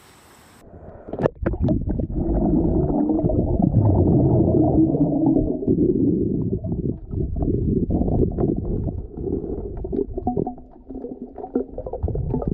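Muffled underwater sound of a swimmer moving through the water with the camera submerged: dull rumbling water movement and bubbling, with many small pops. It starts abruptly about half a second in.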